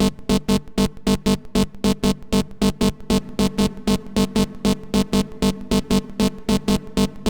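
Heavily distorted Serum 2 saw-wave synth patch playing a fast run of short repeated notes, about five or six a second, through hard-clip distortion, OTT multiband compression and a long cathedral reverb.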